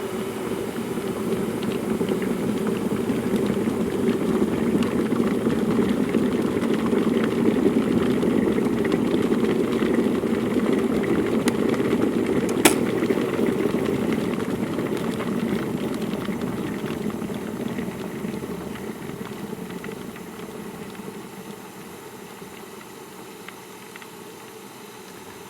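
Water boiling hard in a kettle, a dense bubbling rumble that swells, then dies away gradually over the last ten seconds or so. A single sharp click about halfway through.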